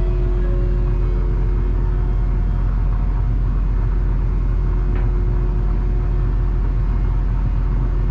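Car ferry's engines running, a steady low rumble with a constant hum heard on board. A faint click about five seconds in.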